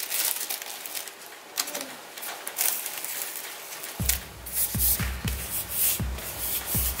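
Light rustling, then background music with a steady thumping beat that comes in about four seconds in.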